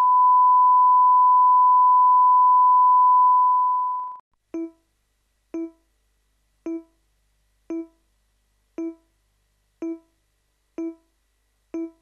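A steady test tone held for about four seconds, which then cuts off, followed by short pitched beeps about once a second, like the countdown of a broadcast tape leader.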